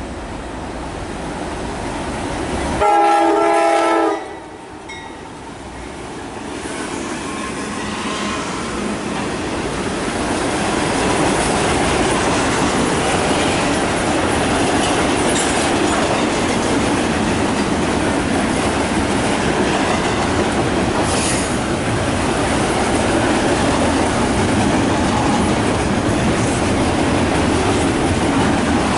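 Two GE Dash 9-44CW diesel locomotives approach and give one short horn blast about three seconds in, the loudest sound. Double-stack container cars then roll past in a steady rush of wheel noise with clickety-clack over the rail joints, building and then holding level.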